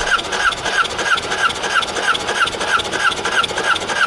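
Electric starter cranking the 2005 Yamaha VX110 Deluxe's four-cylinder four-stroke engine over without it firing, a whine pulsing about three times a second with each compression stroke. This is a compression test with the throttle plate closed.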